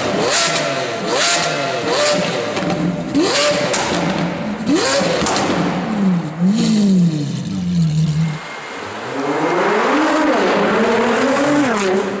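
Lamborghini Aventador's V12 being revved in short blips inside an underground car park, each rev rising and falling with crackles and pops from the exhaust, then settling back down. About 8 seconds in the sound changes to cars accelerating hard along a street, with two engine notes rising together.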